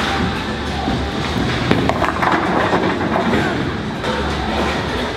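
A bowling ball rumbling down a lane, then crashing into the pins with a clatter about two seconds in, over the continuous rumble of a busy bowling alley.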